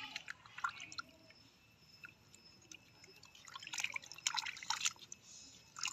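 Bath water in a plastic basin splashing and dripping as a hand scoops it up and lets it run over a baby monkey's head. A few small splashes at the start, a quieter stretch, then a cluster of splashing and drips about three and a half seconds in.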